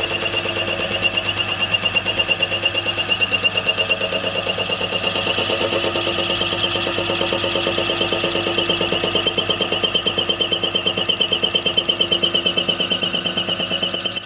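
Milling machine running a boring head, its single-point cutter cleaning up a bored hole in a horn plate, with a steady ringing whine that pulses in a fast, even rhythm.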